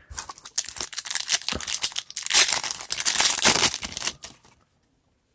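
Foil wrapper of a trading card pack being torn open and crumpled, a dense crinkling and crackling that stops about four and a half seconds in.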